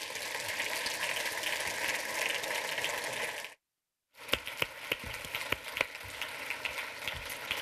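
Conference audience applauding: dense, steady clapping from many hands. The sound drops out to total silence for about half a second about three and a half seconds in, then the applause resumes with individual claps more distinct.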